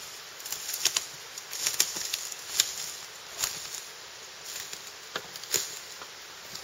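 Footsteps of a hiker walking over the forest floor: irregular crunches and snaps of twigs and dry litter, roughly one a second.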